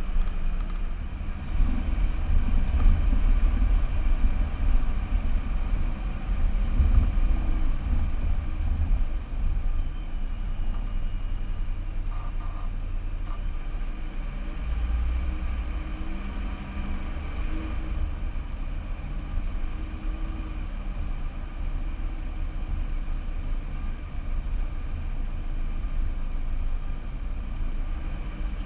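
Car driving slowly, picked up by a camera mounted on the car: a steady low engine and road rumble that swells and eases a little.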